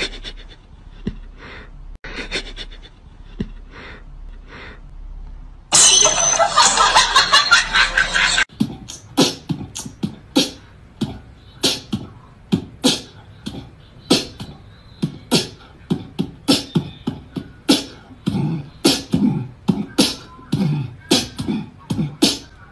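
Rhythmic, beat-driven music made of short, sharp percussive hits, slower at first and then about two to three a second, with a loud, dense burst of sound from about six to eight and a half seconds in.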